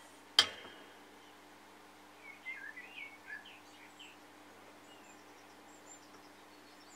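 Faint bird chirps, a short run of them a couple of seconds in, over a low steady hum. A single sharp click with a brief ring sounds about half a second in.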